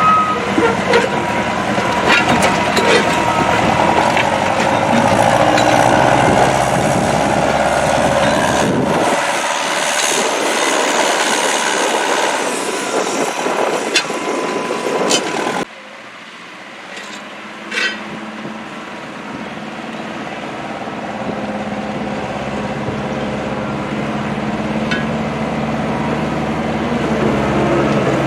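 Truck or heavy-equipment engines running steadily. The sound changes abruptly about nine seconds in and drops sharply about sixteen seconds in, then builds back up toward the end.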